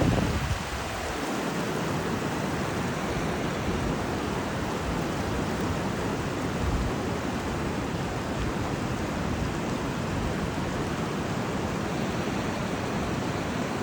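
Steady rush of a mountain river in spate, mixed with falling rain, as an even wash of noise. A low rumble fades out in the first second.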